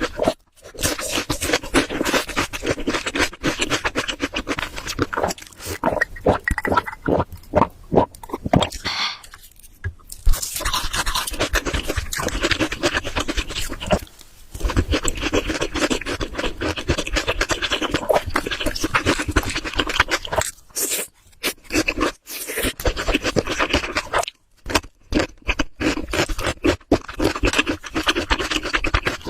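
Close-miked eating: wet chewing and smacking of spicy curry and rice, a dense run of small clicky mouth sounds broken by a few short pauses.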